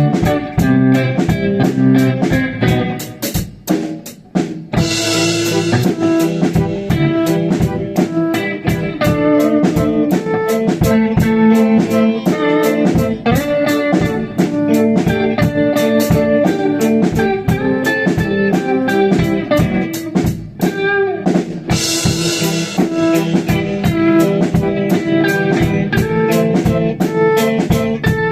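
A rock band playing live: electric guitar and drum kit over a steady, fast beat. The band drops out briefly about four seconds in and comes back with a cymbal crash, with another crash later on.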